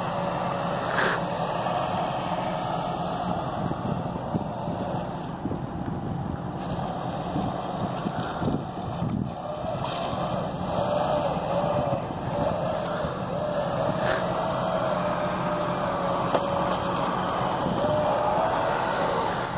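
Small electric drive motors of an RC snow cat running, their whine wavering in pitch as it speeds up and slows, over a steady rushing hiss.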